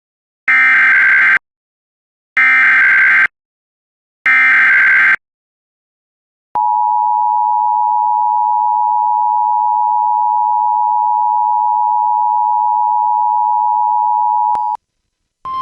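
Emergency Alert System header: three identical bursts of SAME digital data tones, a harsh warbling screech of about a second each, heralding a tornado warning. These are followed by the two-tone EAS attention signal, held steady for about eight seconds. A single steady tone starts just before the end.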